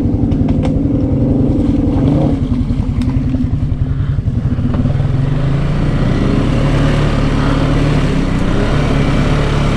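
Can-Am Outlander 700 ATV engine running as it rides through trail mud, the engine note changing about halfway through as it works harder.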